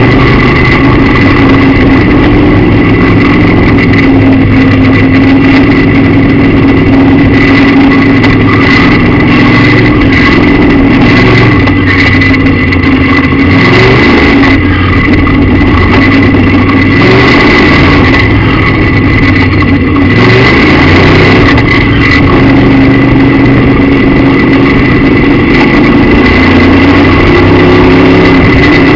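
Midwest Modified dirt track race car's V8 engine at racing speed, heard loud from inside the cockpit. The engine pitch holds steady on the straights and dips and climbs back twice around the middle as the car goes into and out of turns.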